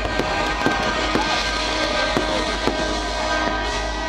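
Aerial fireworks bursting, a string of sharp bangs and crackles over loud music played with the display.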